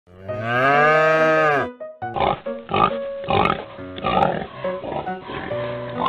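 A cartoon cow's long moo, about a second and a half, rising slightly and falling away at the end. It is followed by background music with a run of short bursts about twice a second.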